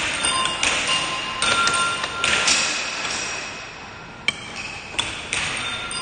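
Air hockey mallet and plastic puck clacking in a few sharp, irregular knocks, the loudest about four seconds in, over the steady beeping and chiming of arcade game machines.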